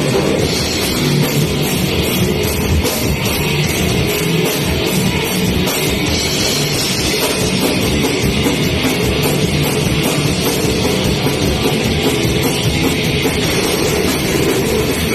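A heavy metal band playing live at full volume: distorted electric guitars over a drum kit, a dense, unbroken wall of sound.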